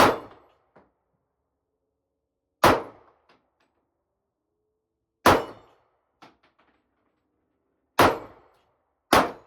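Handgun firing five shots at an uneven pace, about two and a half seconds apart, the last two about a second apart, each a sharp crack with a short echo. A fainter knock follows several of the shots.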